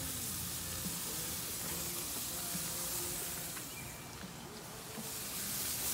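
Marinated chicken thighs sizzling on the hot grate of a Big Green Egg kamado grill: a steady hiss that dips slightly for about a second past the middle.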